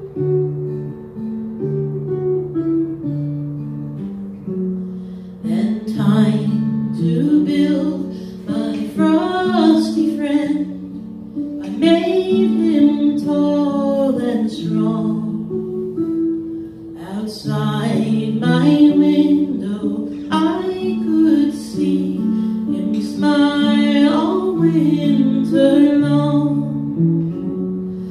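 Seagull M4 dulcimer playing chords, joined about five and a half seconds in by a woman singing the song's melody in phrases over it.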